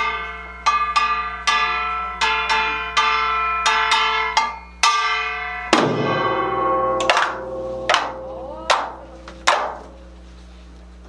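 Kkwaenggwari, the small Korean brass gong, struck alone in a slow, free opening, each stroke ringing bright and metallic and fading. Strokes come every half second or so at first. A louder, fuller stroke about six seconds in is followed by strokes about a second apart, stopping shortly before the end.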